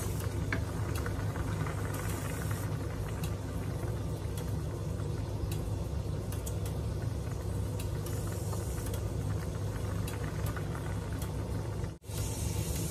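Steady low mechanical hum of a running kitchen appliance, with a few faint light taps of a wooden spoon stirring noodle soup in a pan. The sound drops out briefly near the end.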